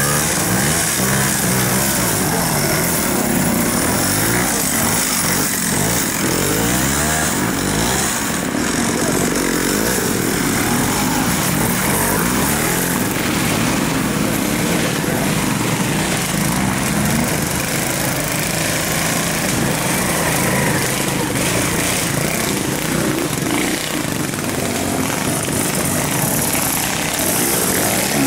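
Off-road enduro motorcycle engines revving as bikes ride one after another through a muddy woodland section, the engine pitch rising and falling with the throttle.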